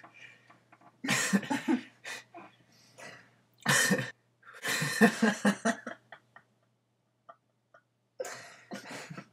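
Someone coughing in several short bursts, with quiet gaps between them.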